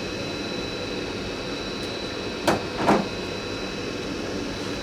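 Steady background hum of a fan or ventilation unit, with two sharp clicks about half a second apart a little past halfway.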